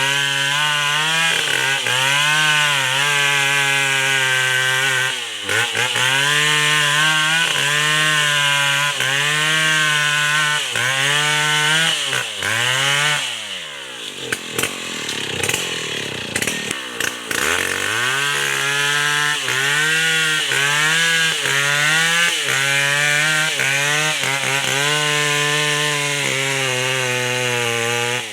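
New West 070 chainsaw, a large two-stroke saw, running at high revs and cutting durian wood, its pitch dipping and recovering about once a second as the chain bites in. About halfway through the engine falls to a lower pitch for a few seconds, then climbs back to full speed and keeps cutting.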